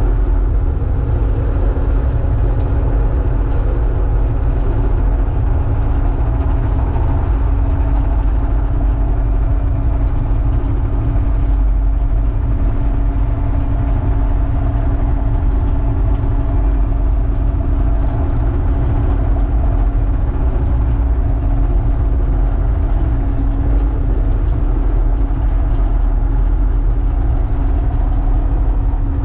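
Kubota excavator's diesel engine running steadily, a heavy low rumble with a steady whine at one pitch over it.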